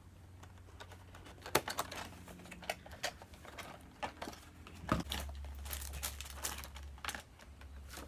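Handling noise from a boxed Funko Pop vinyl figure and its packaging: scattered light clicks, taps and crinkles of plastic and cardboard.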